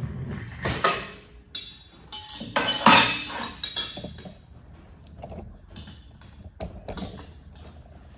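Hands working on the back of a long-arm industrial sewing machine: scattered metal clinks and knocks, the loudest about three seconds in, with no motor running.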